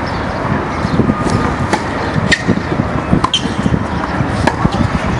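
Tennis ball being struck by rackets and bouncing on a hard court during a rally: a string of sharp, separate pocks a second or so apart, over steady background noise.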